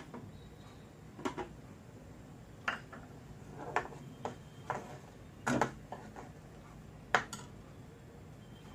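Metal ladle clinking and knocking against a nonstick kadai as curry leaves are stirred into the rasam, about seven irregular knocks.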